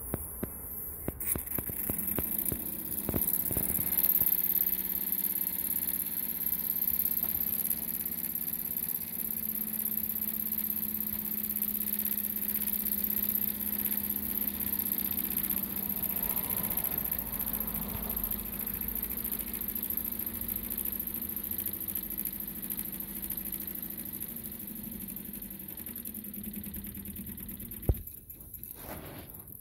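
Jensen #65 and #76 toy live-steam engines running together: a fast, steady chuffing and whirring of the little cylinders and spinning flywheels over a high steam hiss and a low hum. A single sharp click near the end, after which the sound drops away.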